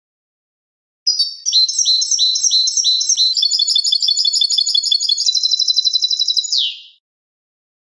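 European goldfinch singing one song phrase about six seconds long: repeated high chirping notes that quicken into a fast trill and end on a falling note.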